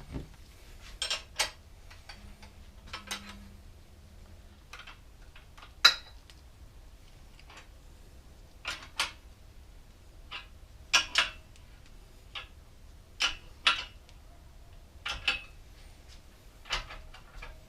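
Sharp metal clicks and clinks at irregular intervals, several in quick pairs: tools and the parts of a homemade bolt-and-washer headset press knocking together as the headset cup is fitted and lined up in the bike's head tube.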